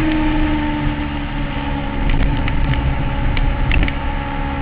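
Motorcycle engine running at high speed over heavy wind and road noise, its note sliding slowly lower, with a few faint clicks in the second half.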